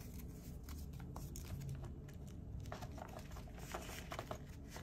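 Paper banknotes being handled and slid into a clear plastic zip-pouch cash envelope: soft paper rustling and plastic crinkling with scattered small clicks, busiest in the second half.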